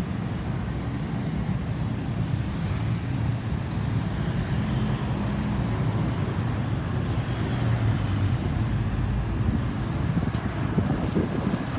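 Road traffic: vehicle engines running and tyres on the road, a steady low rumble with no siren.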